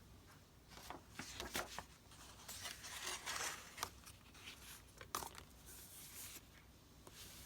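Paper being handled: rustling and crinkling in several short bouts, with a few sharp clicks.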